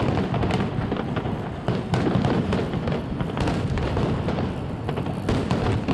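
Fireworks display firing many shells in quick succession: a dense, continuous rumble of bursts and crackling, with sharper loud pops about two seconds in and near the end.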